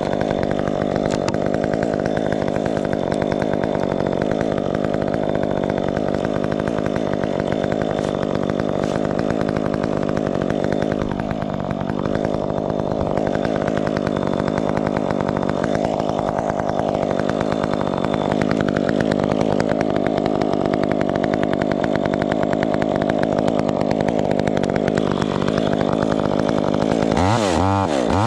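Two-stroke chainsaw running steadily at high revs, its pitch dipping now and then as it works. Near the end the engine note changes sharply and wavers.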